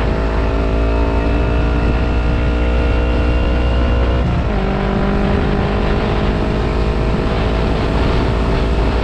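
Kawasaki Ninja 250 parallel-twin engine running under way, heard from on the bike with heavy wind rumble on the microphone. The engine note climbs slowly, drops in pitch about four seconds in as a gear is changed, then pulls on steadily.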